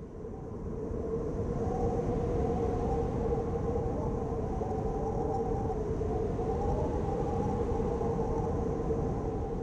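Steady rumbling drone with a held hum over it, swelling in over the first second or two.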